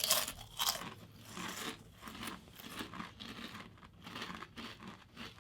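Ridged Ruffles potato chips being bitten and chewed: a loud crisp crunch at the first bite, then a run of irregular crunches as the chips are chewed.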